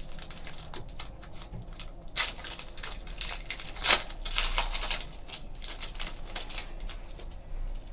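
Trading card packs being opened and handled by hand: packaging rustling and crackling in quick, irregular bursts, with louder bursts about two and four seconds in.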